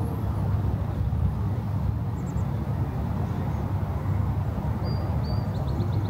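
Steady low outdoor rumble, with a few faint high-pitched bird calls, including a quick run of short notes near the end.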